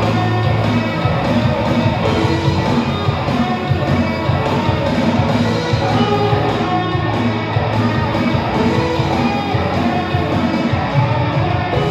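A live band playing a song in rehearsal, with guitars and a steady beat and no singing.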